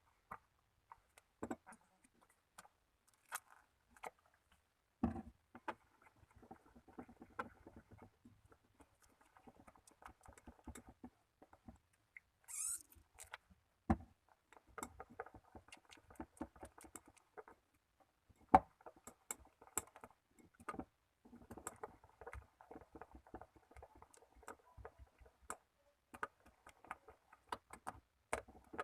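Slime being squished and poked by hand: scattered sticky clicks and small pops with crackly stretches, and one brief airy squelch about twelve seconds in.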